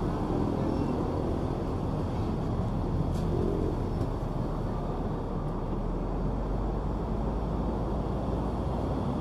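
Steady low rumble of busy city road traffic, cars and motorcycles, with no single vehicle standing out.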